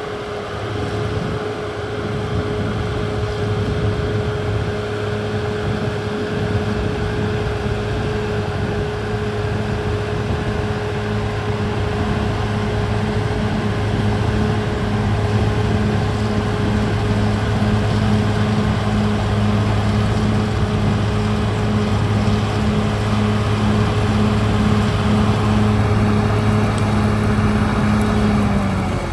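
CAT D6R XL bulldozer's diesel engine running at a steady speed with an even hum, slowly growing a little louder.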